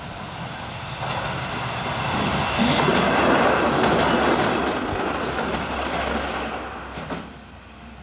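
JR Shikoku 1000 series diesel railcar passing close by, its wheels rumbling over the track and growing louder as it nears. From about five and a half seconds in, a high wheel squeal rings over the rumble, and the sound drops away abruptly about seven seconds in.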